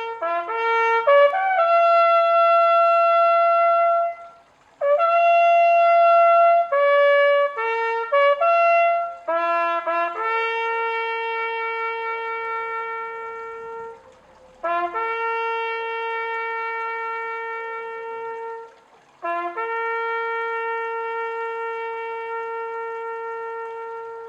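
A solo trumpet playing a slow call one note at a time. It opens with a few quick notes, then holds long notes, with short breaks about every four to five seconds.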